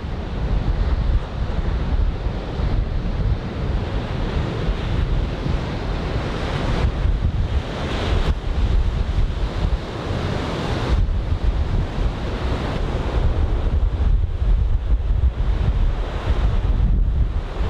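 Heavy typhoon surf breaking and washing up the beach, with strong wind buffeting the microphone in a constant low rumble. A louder, hissier surge of breaking surf swells up about seven seconds in and fades about four seconds later.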